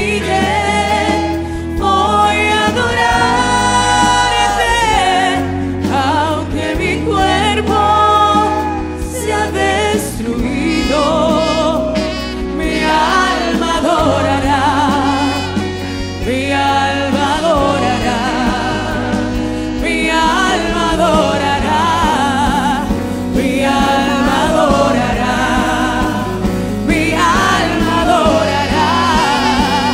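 Live gospel worship song sung in Spanish: female singers on microphones over a band with electric bass, guitars and keyboard, the bass holding long notes that change every couple of seconds.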